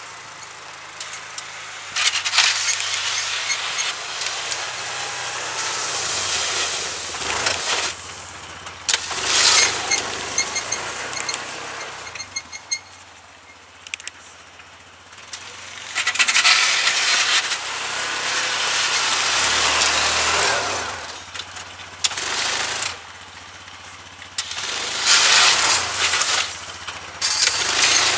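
Yamaha Rhino 660 UTV's single-cylinder engine running as the machine plows snow back and forth. Four louder stretches of rushing noise, several seconds each, rise over the engine's steady drone.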